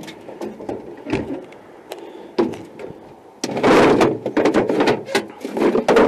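Knocks and clunks as an aluminum boat's deck storage hatch is opened, then loud rattling and clattering of gear being rummaged through, about three and a half seconds in and again near the end.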